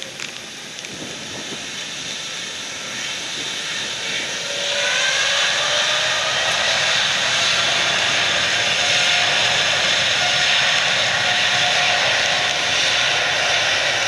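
Boeing 787 airliner's twin jet engines spooling up to takeoff power on a wet runway. A whine rises about four seconds in, then settles into a loud, steady roar with a hiss of spray and rain.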